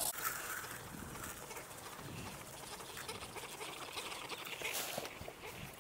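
Domestic ducks (Rouen Clair and Orpington breeds) making faint, low calls.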